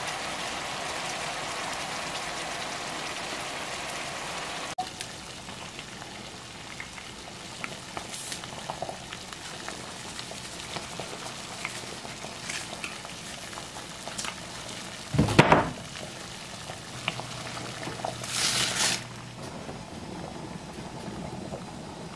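Ground beef sizzling as it browns in a skillet. About five seconds in this gives way to a pot of water at a rolling boil, bubbling with a few small ticks. It is broken by a loud thump around the middle and a short hiss a few seconds later.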